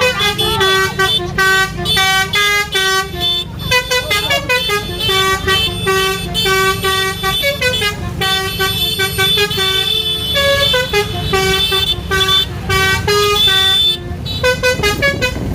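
Bus 'telolet' Basuri multi-tone horn playing a melody, its notes changing in quick steps several times a second, over a low rumble.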